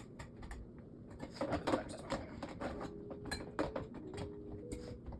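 Hands handling and fitting animatronic parts together: a run of light clicks and knocks of plastic and metal pieces, busiest from about a second and a half in.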